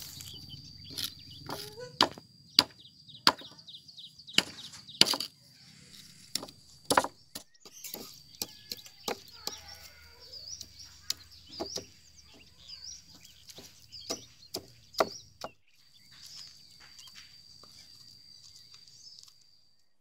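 A pestle knocks and grinds in a wooden cobek mortar, crushing cooked eggplant. The strikes are sharp and irregular, sometimes several close together, with softer scraping between them. They thin out after about fifteen seconds.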